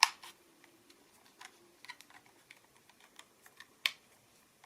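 Scattered small plastic clicks and taps from handling a drone remote controller and a USB-C cable, with a sharp click at the very start and another about four seconds in, as the cable is fitted into the controller's cable slot.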